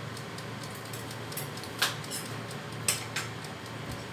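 German Pool halogen convection oven running with a steady low hum, under a few sharp ticks, the loudest about two seconds in.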